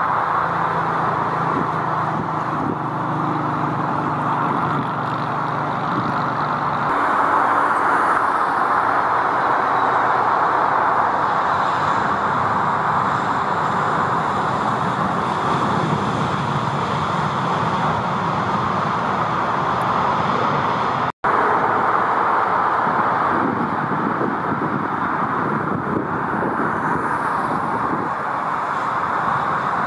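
Jet airliner engines running as narrow-body jets pass, a steady loud rushing noise. It breaks off for an instant about two-thirds of the way through, then picks up again.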